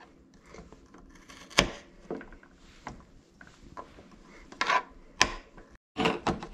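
Kitchen knife chopping carrots on a plastic cutting board: a handful of separate knife taps against the board, the loudest about a second and a half in and near the end.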